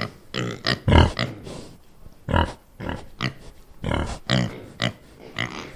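Pig grunting: a rapid, irregular series of short grunts, the loudest about a second in.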